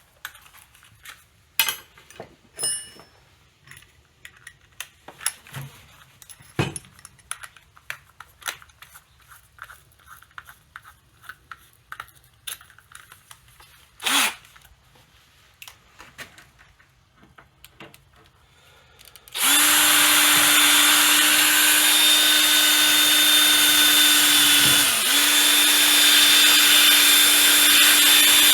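Scattered small clicks and knocks of tools being handled, then about two-thirds of the way in an electric drill starts and runs steadily, sagging briefly once, drilling holes through the flat belt's splice.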